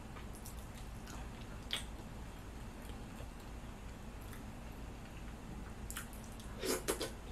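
Quiet eating sounds from a shrimp boil: chewing, then wet squelching as fingers dig through the food in its sauce, with a single click about two seconds in and a short cluster of louder wet clicks near the end.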